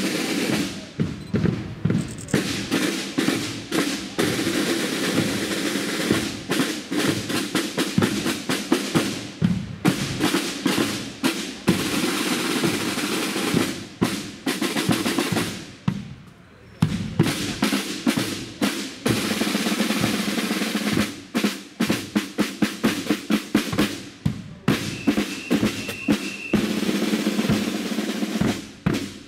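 A marching drum corps playing snare drums and a bass drum: rapid snare rolls and rhythmic strikes, with a short break a little past halfway before the drumming picks up again.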